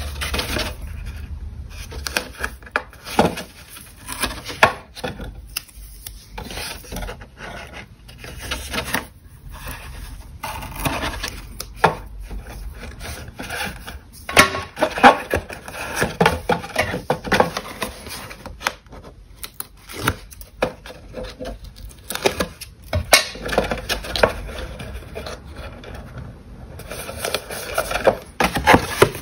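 Hands working a cardstock box with adhesive tape: strips pulled off a roll and stuck onto a paper flap, backing peeled away, and the card pressed and rubbed down. The result is irregular rustling and scuffing with many small sharp clicks.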